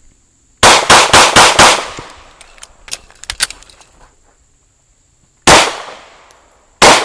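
Semi-automatic pistol fired five times in rapid succession over little more than a second. After a pause of nearly four seconds with a few faint clicks, it fires two more shots about a second and a third apart.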